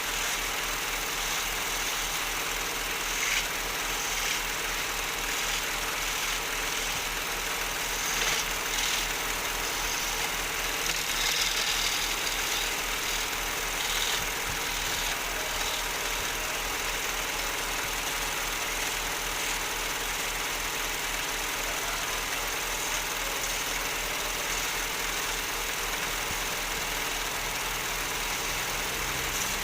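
Wood lathe running steadily with a constant motor hum and hiss, with a few brief louder scrapes in the first half.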